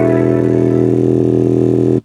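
Smartphone ringtone remixed with heavily boosted bass, played loud through a JBL Flip 3 portable speaker: a sustained chord over strong low notes that cuts off suddenly at the end.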